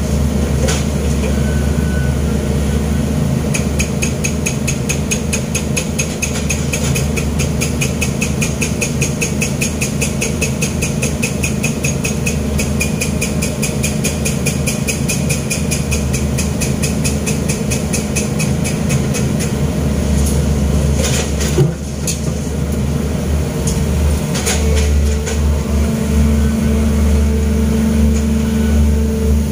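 Long-arm excavator's diesel engine running, heard from inside the cab. A fast, even ticking runs through the first two-thirds, and a steadier, higher hum joins in over the last few seconds as the arm works.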